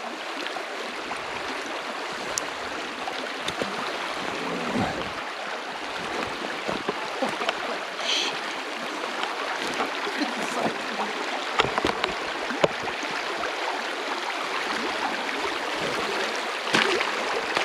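River water rushing steadily over stones, with a few brief clicks.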